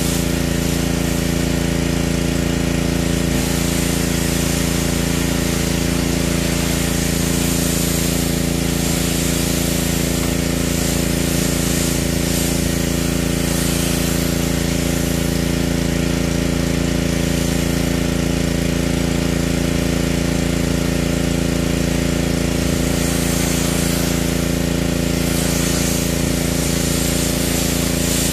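Pressure washer running steadily with a constant motor hum, its water jet hissing as it sprays over the car's windshield and hood.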